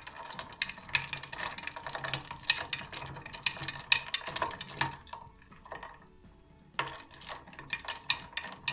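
A metal spoon stirring iced lemonade in a glass jug, clinking against the glass and the ice cubes in quick, irregular taps, with a short lull a little past halfway before the clinking resumes.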